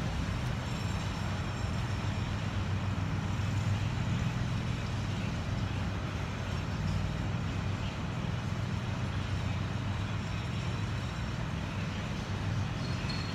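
Steady low rumble of outdoor urban background noise, like distant traffic, with no distinct events.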